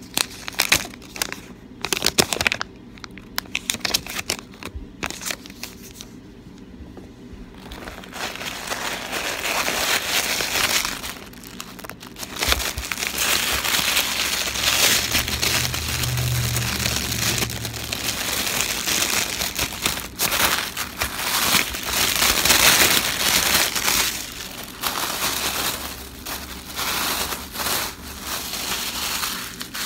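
Packaging being handled close up: scattered taps and clicks at first, then sustained crinkling and rustling from about eight seconds in.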